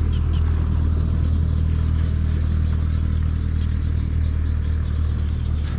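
A steady, low engine drone that holds an even pitch and level throughout.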